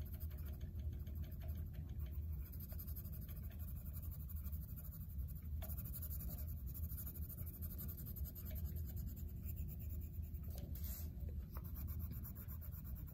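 Coloured pencil scratching on paper in quick back-and-forth shading strokes, over a steady low rumble.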